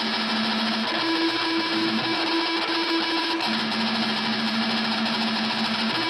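Electric guitar played through effects and distortion: a dense, noisy wash over a held note. The note steps up to a higher pitch about a second in and drops back about halfway through.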